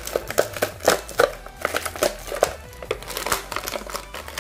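Clear plastic blister packaging crinkling and crackling in quick, irregular bursts as hands flex it to pull an action figure free.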